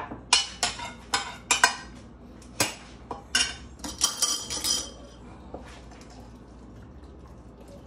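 Metal spoon clinking against a glass baking dish: a run of sharp clinks over the first five seconds, the last few ringing briefly.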